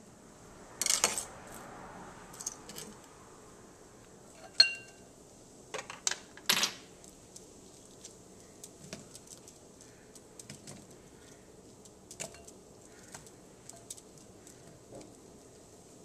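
Kitchen handling sounds: scattered clinks, knocks and clatters of plastic measuring spoons and a glass mixing bowl on a stone countertop. The loudest are about a second in and around five to six and a half seconds in, one with a short glassy ring, followed by fainter taps as cut onion pieces go into the bowl.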